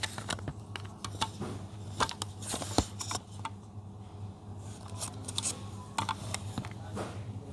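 A package being handled and opened by hand: irregular clicks, taps and short crinkly rustles, over a steady low hum.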